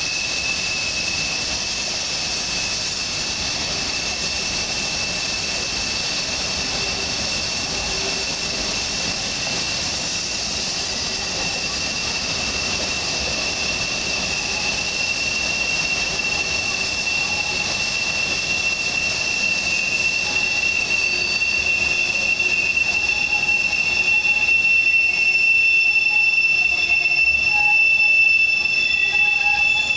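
Freight cars rolling around a sharp curve, their wheel flanges squealing in a steady high-pitched tone over the rumble of the wheels on the rails. It gets a little louder in the second half.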